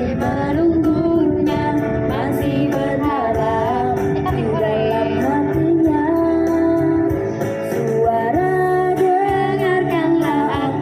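A song with a woman singing over guitar and a steady beat.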